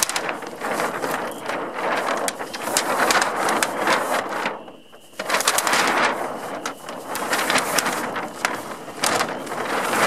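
Monofilm windsurf sail crinkling and crackling as it is handled and flexed, with a short pause about halfway through.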